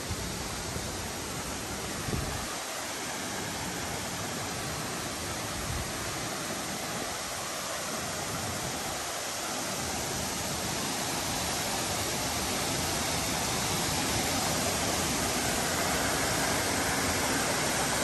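Waterfall and creek water rushing steadily, growing slowly louder.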